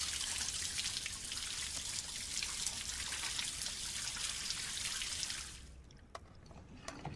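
Bathroom sink tap running, a steady stream of water splashing into the basin as hands are washed under it; the flow stops about five and a half seconds in.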